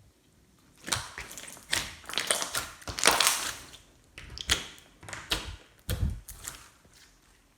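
Hands squishing and pressing slime: an irregular run of sticky pops, clicks and crackles, with the longest, loudest burst about three seconds in, dying away shortly before the end.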